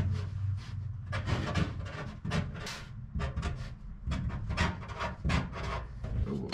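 Marker pen scratching on masking tape laid over an aluminium floor panel, a string of short uneven strokes as marks and numbers are written, over a low steady hum.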